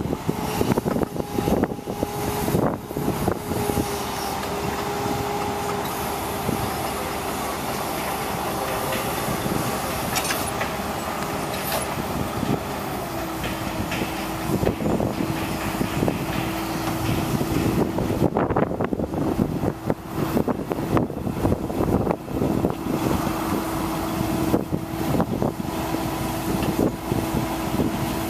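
Engine of a 1999 International digger derrick truck running steadily and driving the hydraulics that swing and lower the boom and auger. The drone steps down to a lower, steady pitch about halfway through, and irregular thumps sound over it.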